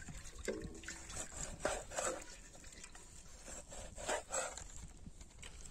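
A dog making short calls several times, with a brief pitched cry about half a second in.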